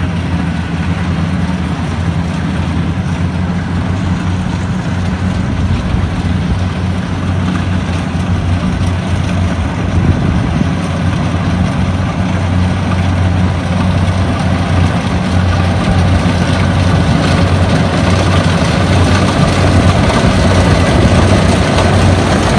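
Kubota rice combine harvester running steadily as it cuts, a low engine hum that grows louder as the machine comes closer.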